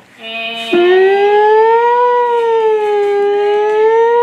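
Electronic toy siren of a ride-on fire truck wailing, its pitch slowly rising and falling in long waves. It begins about a second in, after a short steady tone.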